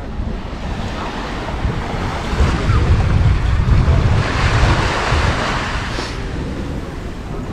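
Ocean surf washing onto a sandy beach, with wind rumbling on the microphone; a wave swells and breaks about halfway through, then eases off.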